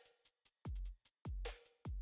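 Electronic background music: a drum-machine beat of deep kick drums that drop in pitch, with crisp hi-hat clicks between them.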